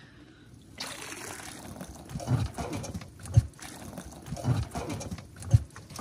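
Seawater streaming and dribbling off a wire crab trap as it is hauled up out of the water, starting about a second in, with a few dull bumps.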